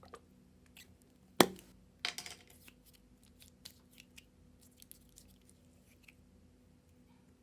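Putty slime being squeezed and pulled by hand, with one sharp snap about a second and a half in, then a short run of crackling pops and scattered small clicks.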